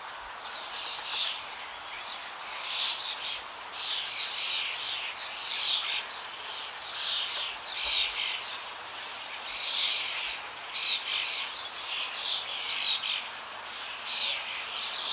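Birds chirping: many short, quick chirps in busy clusters, one after another, over a faint steady background hiss.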